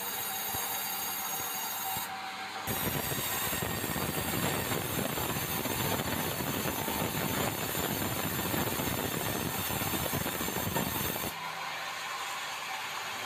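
Band saw headrig at a sawmill, cutting a red meranti log. The blade runs free at first with a steady whine. Then, for about eight seconds, it cuts lengthwise through the log with a loud, rough cutting noise, and near the end it runs free again.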